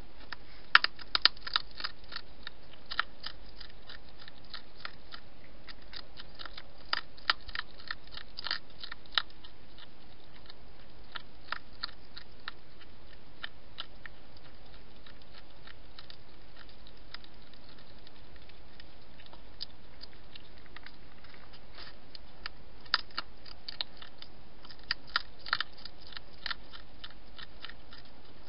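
Wild hedgehog eating, crunching its food in sharp clicky bites: three bursts of crunching, about a second in, around seven to nine seconds and near the end, with scattered single crunches between, over a steady hiss.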